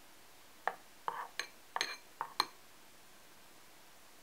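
Metal spoon clinking against the side of a bowl while stirring tempura batter (tempura flour mixed with water): a quick run of about seven light knocks, then stillness as the spoon is lifted.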